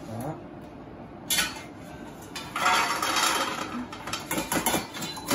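Hot roasted nuts rattling out of an air fryer's metal mesh rotisserie basket into a stainless steel bowl. There is a sharp metal clink a little over a second in, then a dense rattle as the nuts pour, then several more clinks of metal on metal near the end.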